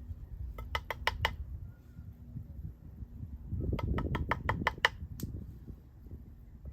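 Two quick runs of sharp metallic clicks, about seven a second, the second longer and over a low clatter of metal being handled.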